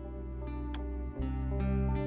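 Background outro music with sustained notes, growing louder, with a change of notes about a second in.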